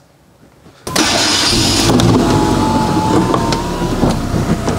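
Hyundai i10's 1.1-litre four-cylinder engine running steadily, cutting in abruptly about a second in after a moment of near silence.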